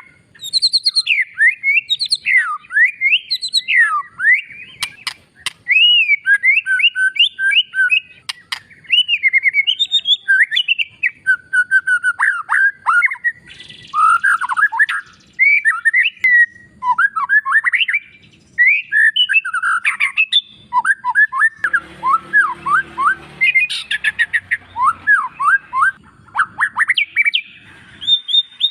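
White-rumped shama singing a fast, varied song of whistled, sweeping phrases, broken twice by short harsh rattling notes.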